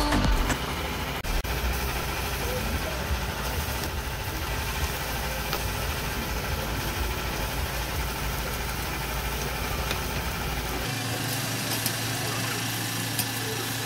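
Beef and garlic sizzling on a charcoal barbecue grate, a steady hiss over a low rumble. About eleven seconds in the rumble drops away and a low steady hum takes its place.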